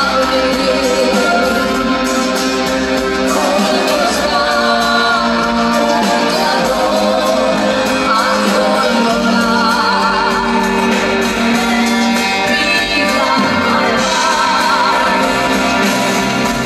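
Live band music in a large concert hall: a woman singing, with wavering held notes, over a band with bass guitar.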